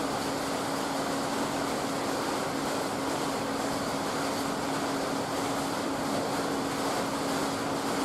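Steady hiss with a constant low hum, unchanging throughout, with no clicks or knocks standing out.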